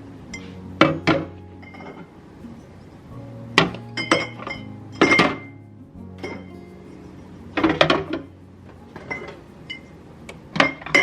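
Hard containers and glassware clinking and knocking as they are set down and moved, in a string of separate knocks and clinks, over soft background music.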